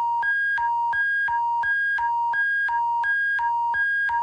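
Emergency alert attention signal: a loud electronic two-tone alarm that switches back and forth between a lower and a higher pitch about three times a second.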